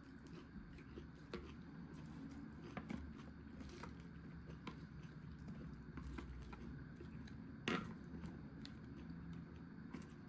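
Quiet eating sounds from a pork shabu salad with sesame sauce: chewing, with scattered small clicks and scrapes and one louder click about three quarters of the way through, over a steady low hum.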